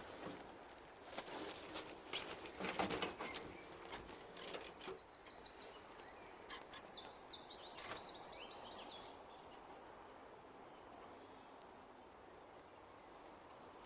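A songbird singing one long, high, rapid trilled song lasting several seconds, in woodland. Before it come a few seconds of scattered crackles and knocks.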